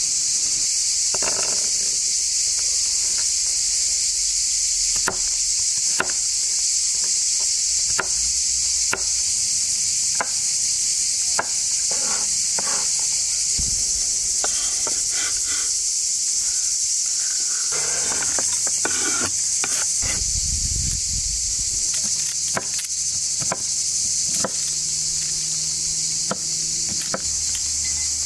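A steady, high-pitched chorus of insects. Scattered light clicks and knocks come from food being handled at the table.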